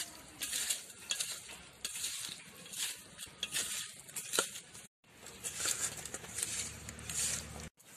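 A hand mixing small puti fish with salt and turmeric in a steel bowl: wet, squishing rubs of the fish in repeated strokes about two a second, with light clinks of fish and fingers against the bowl. There is a brief break about five seconds in.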